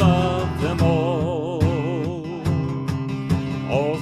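Worship song: a voice holds a long sung note with a wide vibrato, over strummed acoustic guitar.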